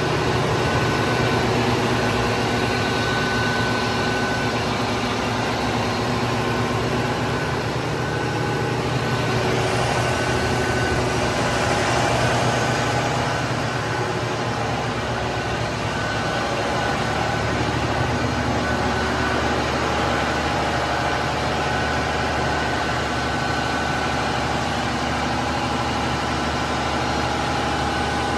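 Diesel generator set engine running steadily as backup power, a constant low drone with a steady hum.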